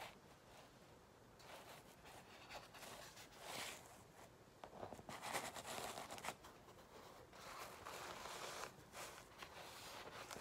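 Faint scratchy rustling and scraping of paper and a palette knife on wet acrylic paint, in uneven strokes that are loudest around the middle.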